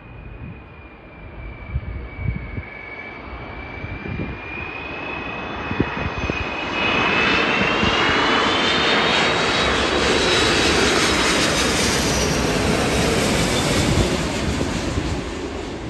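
Delta Air Lines Airbus A330 on final approach passing low overhead, gear down. The whine and rumble of its twin jet engines build over the first seven seconds, with several high whining tones sliding in pitch, stay loud, then begin to fade near the end.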